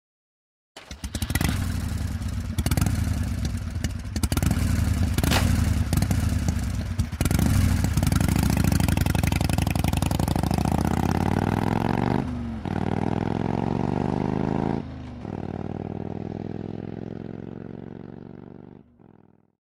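Harley-Davidson V-twin motorcycle engine running hard, then pulling up through the gears: two brief dips at the shifts, with the pitch climbing after each. It fades out near the end.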